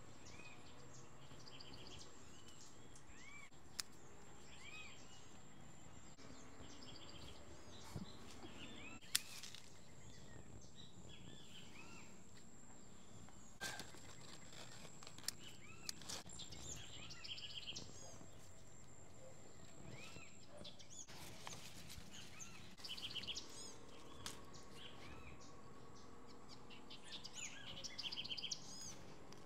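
Birds chirping and calling in short repeated notes over faint outdoor ambience. A steady high-pitched tone runs under them and stops about two-thirds of the way through, and a few sharp clicks stand out.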